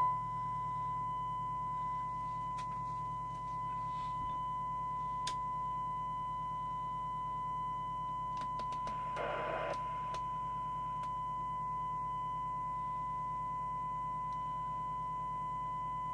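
Steady 1 kHz test tone from a signal generator, received and demodulated by a Skiptech TI4000FM FM CB radio and heard through its speaker, with a low hum underneath. The repairer takes its sound as a sign that the FM detector is out of alignment. A short burst of noise comes about nine seconds in, and there are a few faint clicks.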